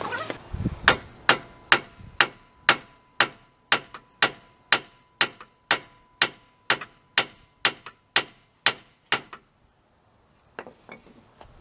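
Hammer blows on metal, about eighteen evenly paced strikes at roughly two a second with a slight ring, stopping about nine seconds in: the new front strut being driven down into the steering knuckle.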